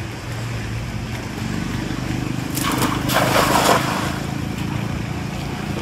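A cast net slapping down onto pond water, a brief rushing splash about halfway through. A steady low mechanical hum runs underneath.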